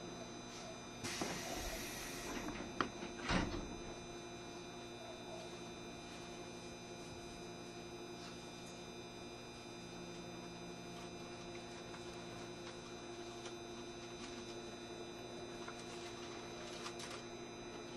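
JR Shikoku 7200 series commuter train standing in the station, its onboard equipment giving a steady hum with several steady tones. About a second in there is a short hiss, then a couple of sharp knocks.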